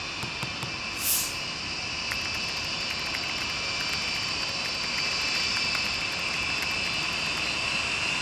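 Steady jet aircraft engine noise with a faint high whine. A brief high hiss comes about a second in.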